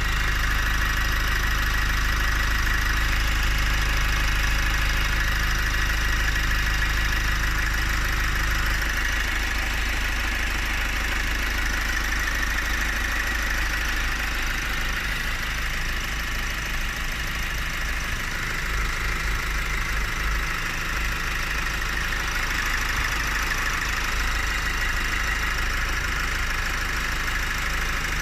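Opel Astra K engine idling steadily with a deep hum and a loud running noise that the owner complains of, along with a vibration at idle; the deep hum weakens and turns uneven about nine seconds in.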